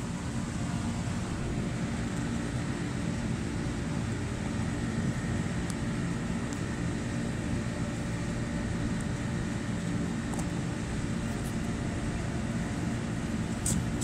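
Steady low machine hum with a faint high whine held through it, and a few light clicks near the end.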